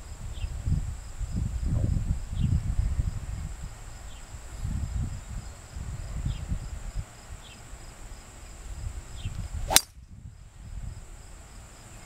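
A golf club striking a ball off the tee: one sharp crack near the end. Before it, wind buffets the microphone in gusts.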